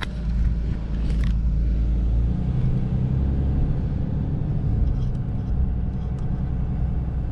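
Steady low rumble of a truck's engine and tyres heard from inside the cab while driving, with a brief click about a second in.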